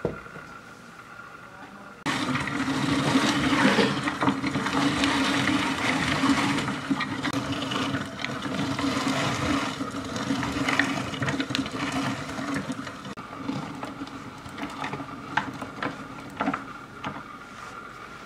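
Small electric grinder running as it grinds shelled walnuts to crumbs, starting abruptly about two seconds in with a steady hum. Later the motor stops and scattered rattles and taps follow as the ground nuts are shaken out.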